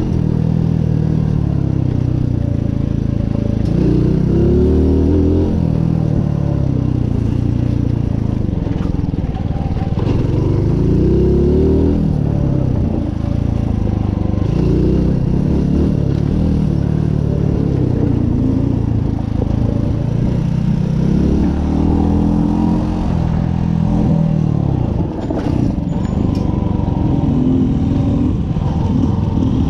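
Mutt motorcycle's single-cylinder engine running under load over rough dirt, its revs rising and falling again and again as the rider opens and closes the throttle. A couple of sharp clicks near the end.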